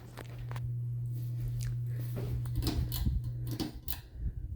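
A steady low electrical hum that cuts off suddenly about three and a half seconds in, with scattered clicks and handling knocks throughout.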